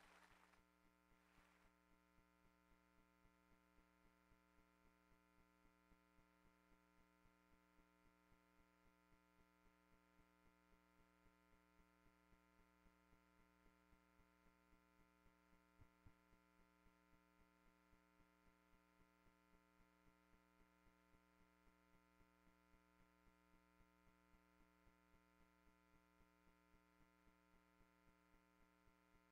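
Near silence: a steady electrical hum with a faint regular ticking, about three ticks a second, and one slightly louder click in the middle.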